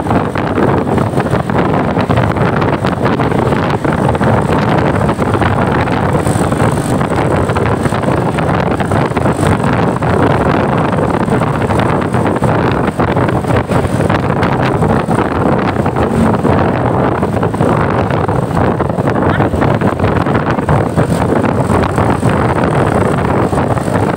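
Steady vehicle noise with wind buffeting the microphone, with no horn melody standing out.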